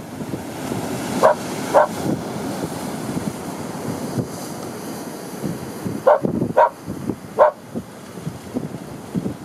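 Wind on the microphone over the wash of the sea, broken by five short, sharp bark-like calls: two about a second in and three between six and seven and a half seconds in.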